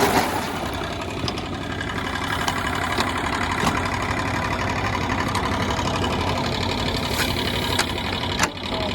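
Engine-driven feed-processing machine running steadily, a continuous mechanical drone with scattered short knocks and clatters.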